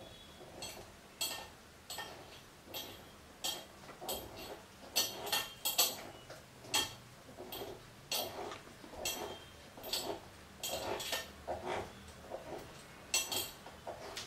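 Screws being tightened by hand into the soft-board pad of a steel tripod arm rest: a run of short metallic clicks and clinks, about one or two a second, as the tool turns and knocks against the metal fittings.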